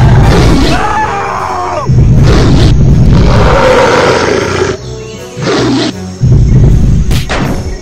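Monster-style dinosaur roar sound effects: several long, gliding roars one after another, over background music.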